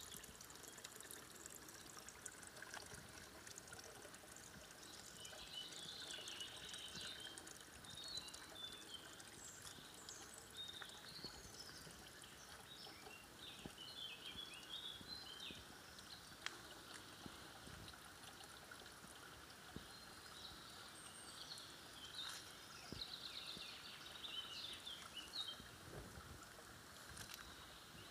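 Faint woodland ambience: songbirds chirping and twittering on and off over a soft trickle of spring water.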